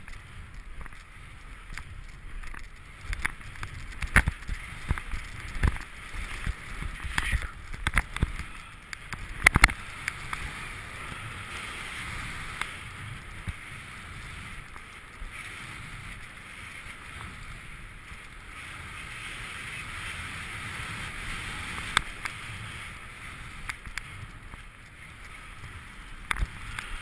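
Skiing down fresh powder, heard on a GoPro camera: a steady rush of wind and snow. It is broken by clusters of sharp knocks and thumps in the first ten seconds, the loudest about nine and a half seconds in, and a couple more near the end.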